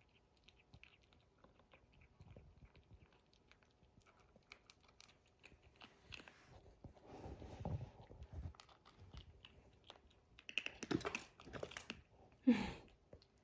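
Kittens playing: faint scattered taps, clicks and scuffling of paws and claws, busier and louder in the second half, with the loudest short scuffle near the end.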